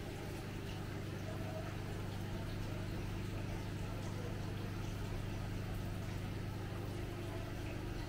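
Aquarium air pumps and filters running along a bank of fish tanks: a steady low hum with water bubbling underneath.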